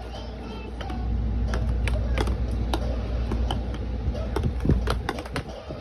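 Marble rolling through a cardboard marble run made of toilet paper and paper towel tubes: a low rumble as it runs through the tubes, with scattered clicks and knocks as it drops and strikes the cardboard. The rumble fades about five seconds in.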